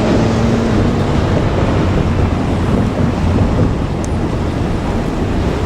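Freight train wagons rolling past at a level crossing, a steady, loud, heavy rumble of wheels on rail with no distinct clicks.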